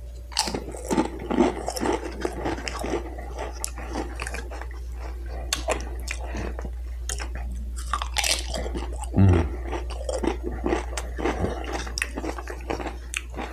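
Crunching and chewing of nacho cheese Dorito tortilla chips dipped in cream cheese, with many sharp crunches throughout. A single low thump comes about nine seconds in.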